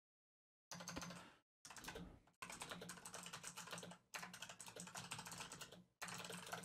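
Faint, fast typing on a computer keyboard, in runs of keystrokes with short gaps between them, starting about a second in.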